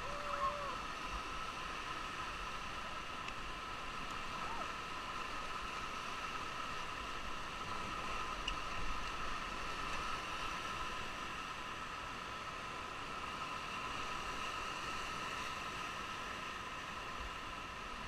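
Steady rush of whitewater rapids around an inflatable raft, mixed with wind noise on an action camera's microphone. A brief voice-like cry comes near the start.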